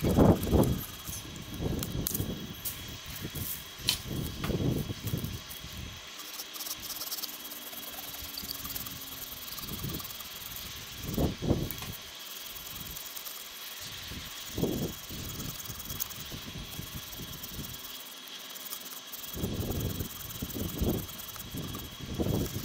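Wind buffeting the microphone in irregular gusts, rumbling and then dropping away, over a steady hiss.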